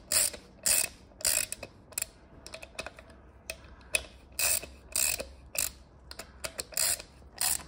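Hand ratchet wrench on an E-Torx 14 socket clicking in short bursts, roughly two a second, as the main bearing cap bolts are snugged down by hand until the cap seats on the block.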